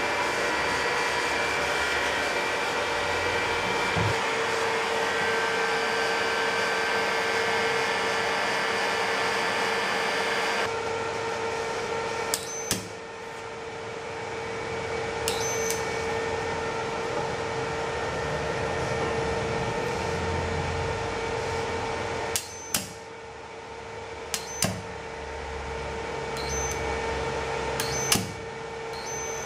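Electric heat gun running steadily, its fan giving an even blowing noise with a constant hum. About eleven seconds in the sound turns duller, and a handful of sharp clicks come in the second half.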